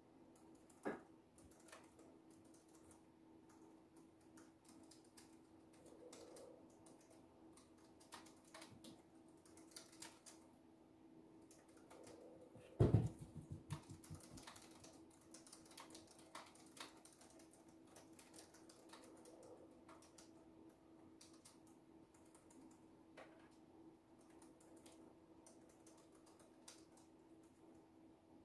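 Soft, irregular typing on a computer keyboard over a faint steady hum, with a single louder thump about thirteen seconds in.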